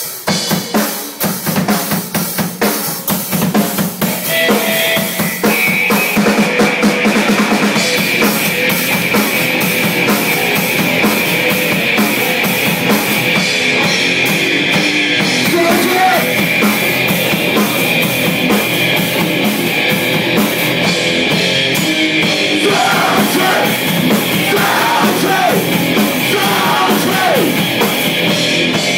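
Live hardcore band during a sound check: the drum kit is struck alone for the first few seconds, then distorted guitars and bass come in and the full band plays loud.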